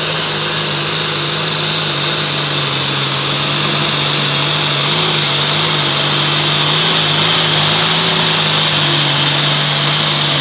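John Deere light super stock pulling tractor's diesel engine running hard under load as it drags a weight-transfer sled, with a steady high whine over the engine note. The sound grows a little louder partway through.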